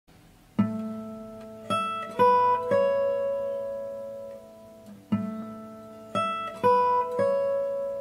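Fender PM-3 Deluxe steel-string acoustic guitar played fingerstyle. A short phrase of four plucked chords is played twice, each chord left to ring and fade.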